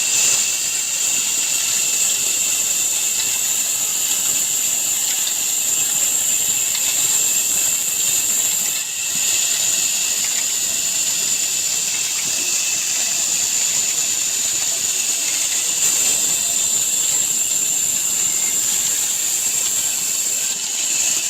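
Old engine-driven wood-cutting saw machine running: a steady high-pitched whine over a hiss, with two brief dips around nine seconds in and near the end.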